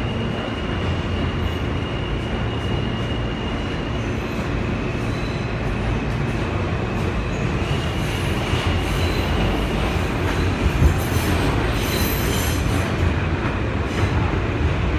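Steady rumble of an R160B New York City Subway car running along the track, heard from inside the car, with a thin high whine that fades for a few seconds and comes back. In the middle the wheels squeal high, and a sharp clack stands out about eleven seconds in.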